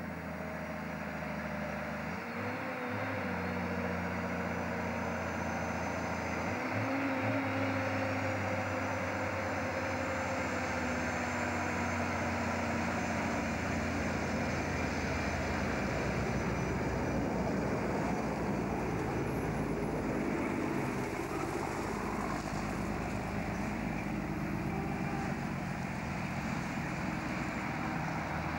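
Heavy diesel truck engine working up a winding road under load, growing louder as it nears. The engine note breaks off and picks up again twice in the first eight seconds.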